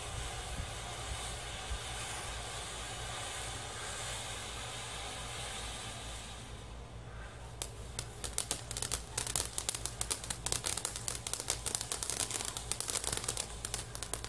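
Consumer firework fountain spraying sparks with a steady hiss that fades away about six and a half seconds in. About a second later a crackling fountain effect starts: a dense, irregular run of sharp crackles.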